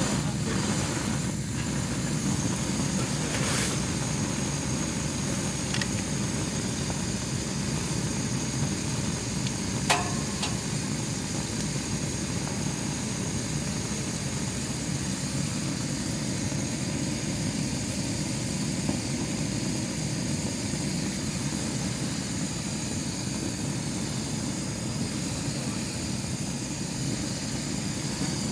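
Gas cartridge burner fitted with a mesh heater dome running at a low flame, giving a steady roar, with one sharp click about ten seconds in.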